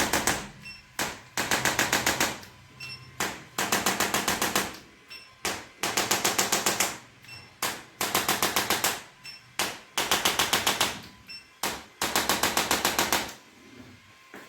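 Handheld percussion device rattling in bursts of rapid strikes, each about a second long, repeating roughly every two seconds with short pauses between.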